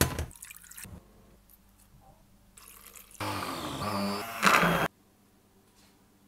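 Hand-held immersion blender running in a plastic jug of purple potato purée for about a second and a half, starting about three seconds in. Its motor pitch shifts as it works, and it cuts off suddenly. A short knock comes at the very start.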